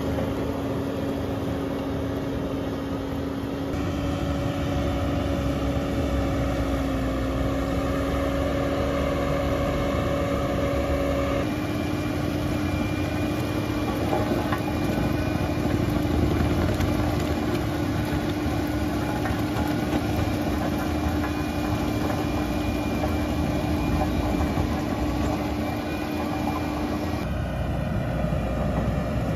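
Bobcat T870 compact track loader's diesel engine and hydraulically driven CONETEKS 2.13 SF forestry mulcher rotor running steadily, a constant whine over engine rumble. The pitch steps up or down abruptly a few times.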